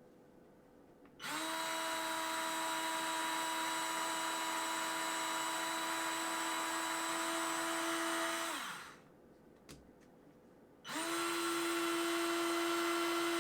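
Parkside PASS 4 A1 4-volt cordless electric screwdriver running free with no load: a steady motor-and-gearbox whine that spins up, runs for about seven seconds and winds down. A single click follows, then it spins up and runs steadily again.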